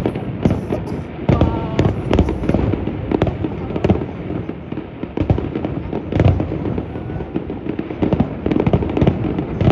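Aerial fireworks bursting in a rapid, irregular barrage of booms and bangs, several per second with no pause.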